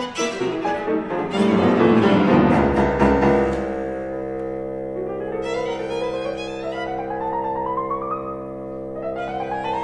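Live chamber music for violin, cello, bassoon and piano in a contemporary classical idiom: a dense, loud passage with sharp attacks for the first few seconds, then sustained held chords over which a line climbs steadily in pitch, twice.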